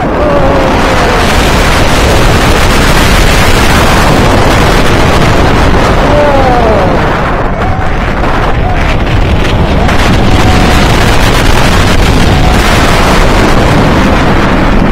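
Loud, continuous wind buffeting the microphone on the front row of a steel hyper coaster train as it plunges down the first drop and runs on through the course, with the train's rumble on the track underneath. Riders' short yells break through a few times, around the middle and near the end.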